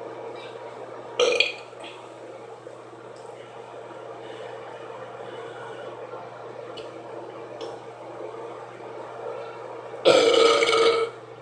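A woman burping: a short burp about a second in, then a longer, louder burp lasting about a second near the end.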